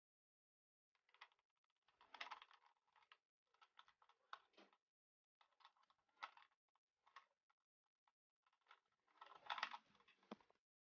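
Faint clicking and crackling from hands handling thin wiring and plastic parts at a motorcycle's front end, in short irregular clusters with the loudest near the end.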